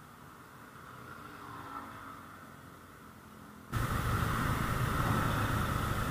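Faint steady hiss, then about four seconds in an abrupt cut to much louder road noise: traffic and motorcycles running on a city street.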